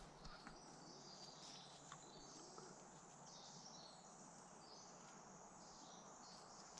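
Near silence with faint, high-pitched birdsong from the surrounding woods and a few soft clicks.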